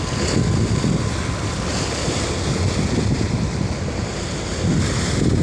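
Wind buffeting the microphone over the rush of churning water in a moving boat's wake, with a steady low rumble beneath; the wind swells briefly about two seconds in and again near the end.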